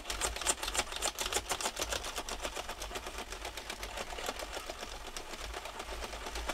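Sentro 22-needle circular knitting machine cranked by hand, its needles clicking rapidly and evenly as it knits yarn, running on a newly installed replacement gear and handle assembly.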